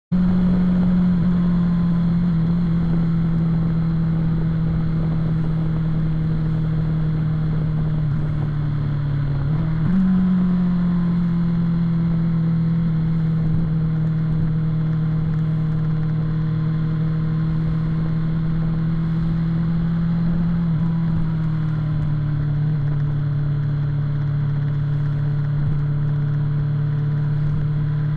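BMW S1000RR motorcycle's inline-four engine running at steady highway cruising revs. Its note sags and then jumps back up sharply about ten seconds in, and settles a little lower about two-thirds of the way through.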